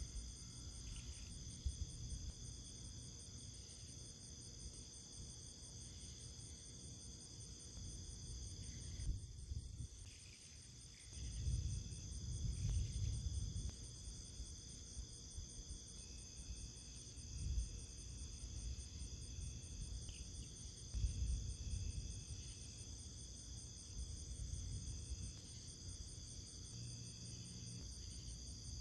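Insects chirring steadily in several high, unbroken tones, one of them a fast pulsing trill, over intermittent low rumbling.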